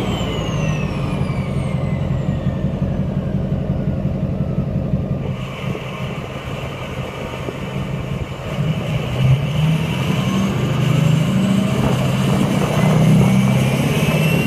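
GMC pickup's Duramax turbodiesel V8 running loud through its exhaust with a deep rumble. A high whistle winds down over the first few seconds and climbs again near the end as the engine is brought back up.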